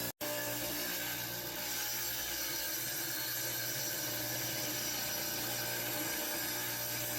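Tile saw running steadily as its blade cuts through a rock specimen: a constant motor hum under an even grinding hiss. The sound cuts out for an instant just after the start.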